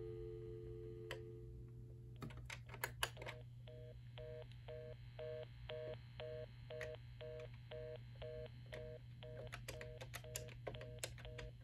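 Cortelco Patriot II desk phone heard through its handset earpiece. A steady dial tone with a low 60-hertz buzz under it stops about two seconds in. Then come keypad button clicks and a run of quiet, short two-tone beeps, about three a second, as a phone number is keyed into memory.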